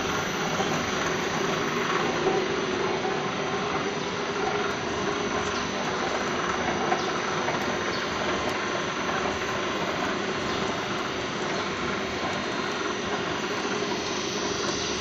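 Aluminium welding wire drawing machine running steadily, winding wire onto its take-up spool: a constant machine drone with a steady hum and a high whine.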